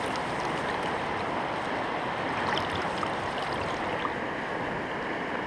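Shallow mountain river rushing over stones: a steady, even rush of water.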